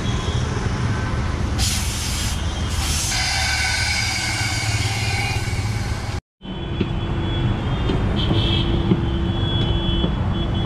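Road traffic: motor vehicle engines running close by, with a spell of hissing about two seconds in. The sound drops out completely for a moment a little past the middle, then the engine rumble returns with a steady whine.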